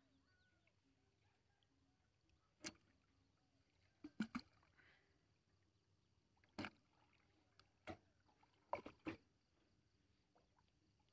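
Sharp knocks and taps on a small metal boat's hull as fishing lines are handled over its side. They come scattered, singly and in quick clusters of two or three.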